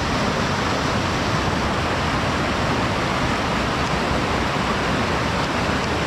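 Rainforest stream cascading over rocks: a steady, even rush of water.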